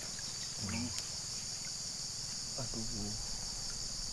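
Steady, high-pitched buzzing chorus of insects such as crickets or cicadas, with two brief low voice sounds.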